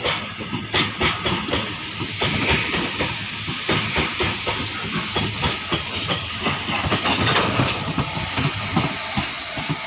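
Covered freight wagons of a passing goods train rolling by close at hand: wheels clattering over rail joints in a quick, uneven beat, over a steady high hiss of wheels on rail.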